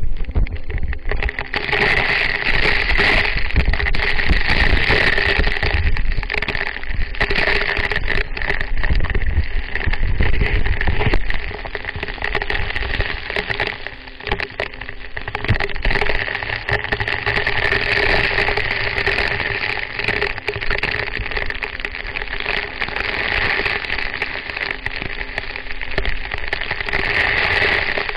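Waterfall water rushing and splashing in a steady, loud wash of noise.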